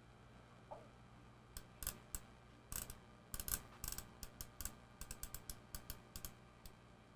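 A run of sharp, irregular clicks from the handheld CB radio's knobs and switches being turned by hand, for about five seconds. The radio's speaker stays silent throughout: the set is dead despite drawing current.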